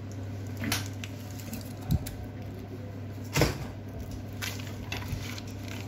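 A few short knocks and clicks of things being handled on a workbench, over a steady low hum. The loudest knock comes about three and a half seconds in.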